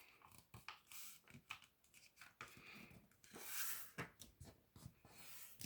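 Faint rustling and creasing of a sheet of printer paper being folded by hand, with a few soft taps. A slightly louder rustle comes about three and a half seconds in.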